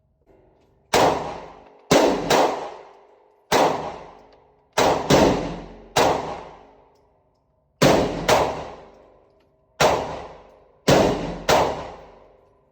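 A 9mm carbine fired shot by shot at an uneven pace, about a dozen shots, some in quick pairs. Each report trails off in a long echo.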